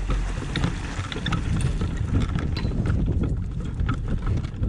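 Wind buffeting a microphone mounted at the top of a small catamaran's mast, a steady low rumble, with light irregular clicks and knocks from the rig.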